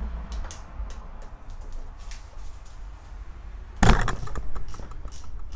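Hand tools working the valve-cover bolts on a Benelli TNT 125 engine: scattered light metal clicks, then a loud knock about four seconds in followed by a quick run of small clicks.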